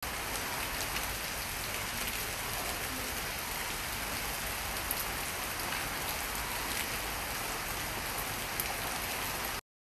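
Heavy rain pouring steadily onto a wet road, grass and leaves: an even hiss with a few sharper drop ticks, cutting off abruptly near the end.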